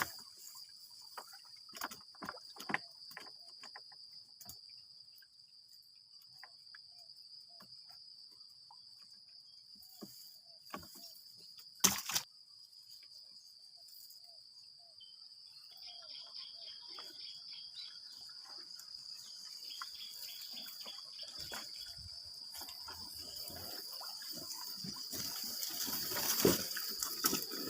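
Water splashing and dripping in small scattered splashes, with one sharp knock about twelve seconds in and sloshing that grows louder in the second half. A steady high insect trill runs underneath.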